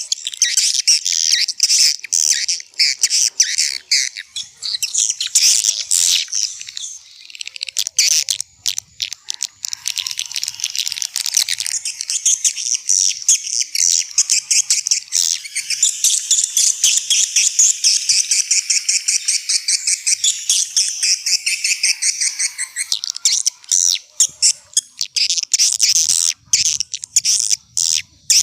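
Swiftlet calls: dense, rapid high-pitched twittering and clicking chatter, a lure call recording of the kind played to draw swiftlets into a nesting house.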